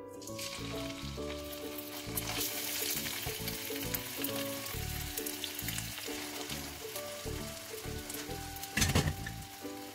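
Ground spice paste of shallot, garlic, candlenut, ginger, galangal and turmeric starts sizzling as it is scraped with a spatula from a stone mortar into hot oil in a wok. The sizzle holds steady, with one brief louder clatter near the end.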